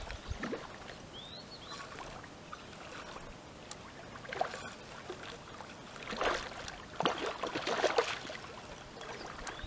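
A hooked carp splashing and thrashing at the water's surface as it is played in to the bank, in bursts about four and a half seconds in and again from about six to eight seconds in. A short bird chirp comes about a second in.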